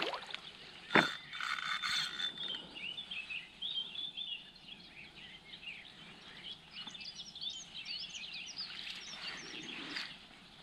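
Birds chirping outdoors: many short, quick, high calls overlapping. A single sharp knock comes about a second in.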